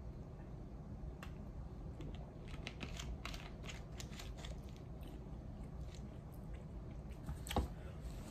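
Faint small clicks and mouth sounds as soda is sipped from a plastic bottle and its screw cap is handled, then a single knock about seven and a half seconds in as the bottle is set down on a wooden table.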